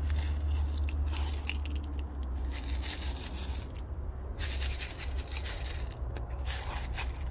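Small gravel top-dressing crunching and scraping as it is poured from a scoop and worked in by gloved hands around potted succulents, with many scattered clicks of little stones. A steady low hum runs underneath.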